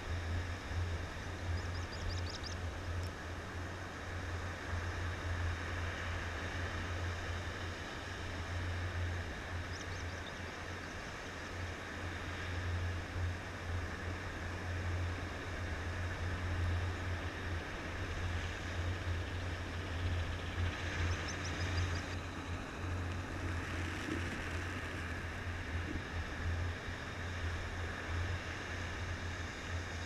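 Steady low rumble of wind on the camera microphone over a constant hiss of surf. A few times, faint quick high chirping trills from sanderlings feeding on the sand.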